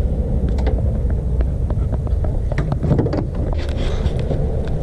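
Steady low rumble of wind or handling on the microphone, with scattered light clicks and knocks.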